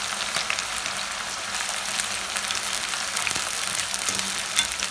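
Sliced onions frying in hot oil in a kadhai: a steady, dense crackling sizzle as they begin to brown.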